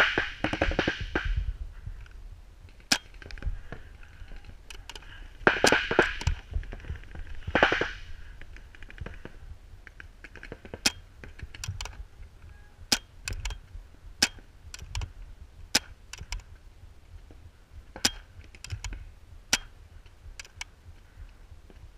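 Paintball markers firing: irregular sharp pops from around the field, with a few denser clusters of shots near the start and about six and eight seconds in.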